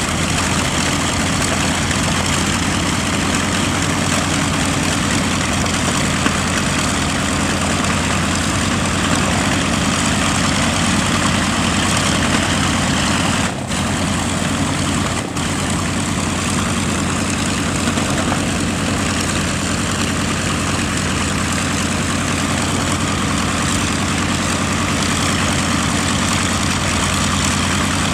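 Wright R-2600 twin-row radial engines of a B-25J bomber idling steadily with propellers turning, with two brief dropouts about halfway through.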